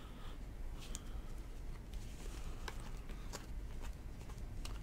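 Trading cards being handled and flipped through: a few faint clicks and light rustles over a low steady hum.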